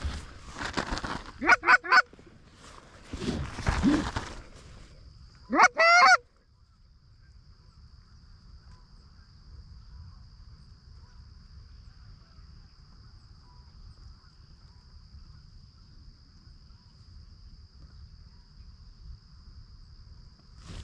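Canada goose honks: a few loud, breaking honks in the first six seconds. After that a steady high insect trill continues over a low rumble of wind.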